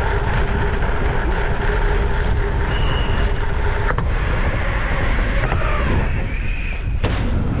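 Wind rushing over a mountain bike rider's camera microphone while riding at speed, with rumble from the ride. There are two sharp knocks, one midway and one near the end.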